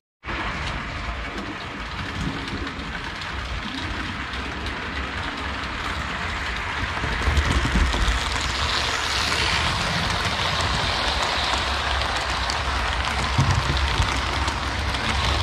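Fleischmann model steam locomotive and coaches running along the track: a steady whir of the electric motor and wheels rolling on the rails, with a few louder clicks around the middle and near the end as the train passes close by.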